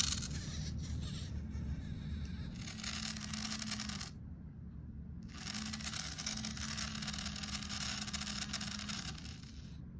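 MetaCat robot cat's neck gear motor whirring and grinding in two runs of about four seconds each, with a pause of about a second between them: the neck gear is faulty and cannot move the head.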